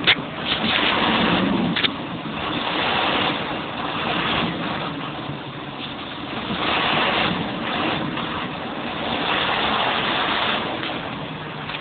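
John Deere tractor's diesel engine running while the tractor sits stuck in mud, mostly buried under a rushing wind noise on the microphone that swells and fades. Two short knocks come in the first two seconds.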